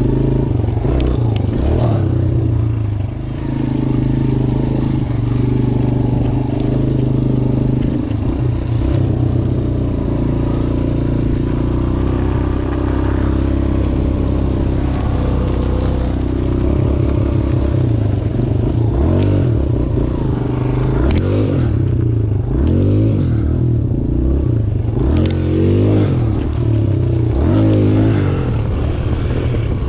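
Suzuki DR-Z125 dirt bike's small single-cylinder four-stroke engine under way, holding a fairly steady note through the first half, then revving up and down again and again in the second half. A few sharp clicks are scattered through it.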